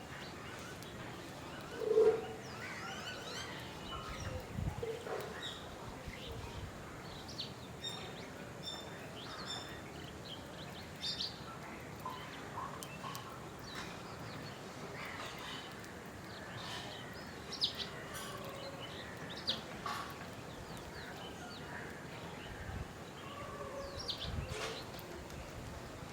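Several wild birds chirping and calling on and off, short high notes over a steady background hiss, with one brief louder, lower sound about two seconds in.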